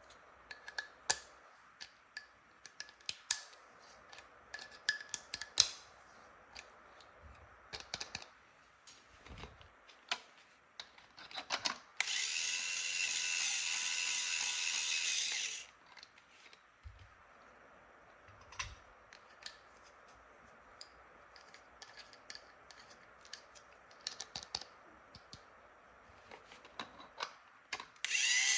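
Toy electric drill and plastic toy tools: scattered clicks and taps of plastic parts being handled. About twelve seconds in, the toy drill runs for nearly four seconds with a steady, high-pitched whir, then stops suddenly and the clicking goes on.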